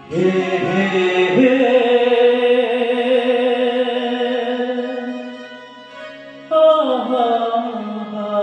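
Devotional music: a singer holds long drawn-out notes in two phrases over a steady accompaniment, the second phrase starting about six and a half seconds in and sliding down in pitch.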